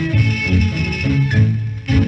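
Closing bars of a 1934 Taiwanese pop record, the ensemble playing its instrumental ending. It finishes on a loud, sharply struck final chord near the end.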